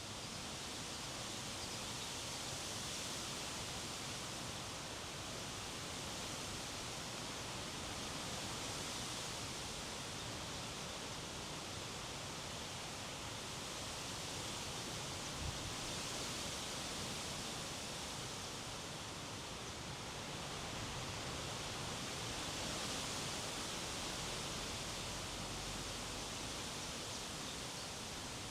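Strong wind blowing, a steady hiss that swells and eases in gusts every six or seven seconds, with one brief low thump about halfway through.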